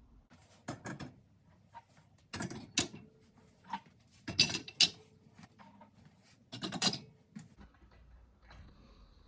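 Clattering and knocking of things being handled in a dishwasher, coming in four short bursts about two seconds apart.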